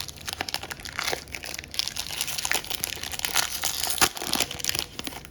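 A foil trading-card pack being torn open and crinkled by hand, with irregular crackling and a sharp click about four seconds in.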